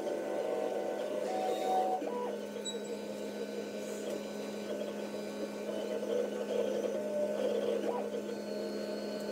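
TierTime X5 FDM 3D printer printing: its stepper motors drive the print head about in a busy, ever-shifting whir over a steady electric hum, with a few brief higher tones as the moves change.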